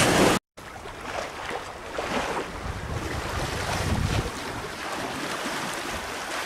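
Wind on the microphone and water rushing past the hull of a Sadler 25 sailing yacht under way at sea. There is a loud gust and a brief dropout near the start, then a steadier, softer wash of wind and water, with the low rumble easing about four seconds in.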